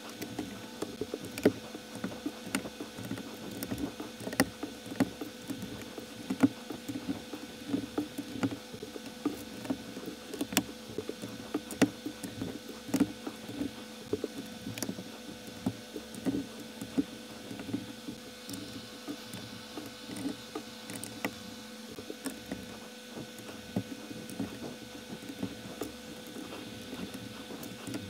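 Plastic building bricks clicking and tapping as pieces are handled and pressed onto a model: many short, irregular sharp clicks.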